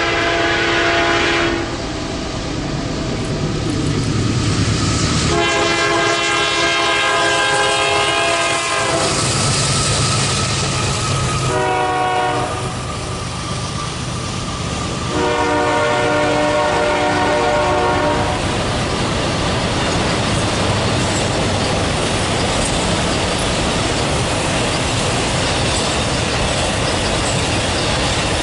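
Diesel freight locomotive air horn sounding the grade-crossing signal: two long blasts, a short one and a final long one. The train then rolls past with steady wheel and rail noise.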